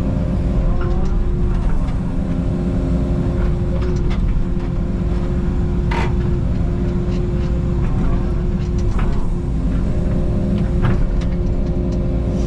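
Takeuchi TB290 mini excavator running steadily while digging, with a steady whine over the engine rumble. Scattered sharp knocks, the loudest about six seconds in, come from the digging bucket striking rocks and boulders in the pond bank.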